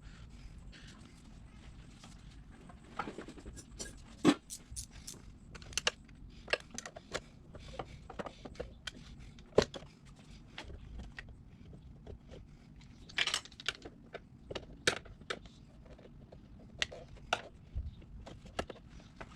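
Irregular sharp metallic clicks and clinks of hand tools and small parts as the choke cross-over linkage on a Honda CB450's carburettors is worked loose, with two louder knocks about four and ten seconds in.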